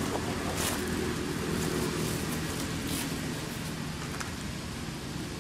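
Steady low hum of distant traffic with a few sharp crackles of dry leaves being picked through by a macaque, the clearest about a second in and again about three seconds in.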